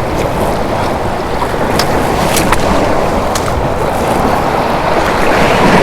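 Loud, steady rushing noise with a few sharp clicks scattered through it.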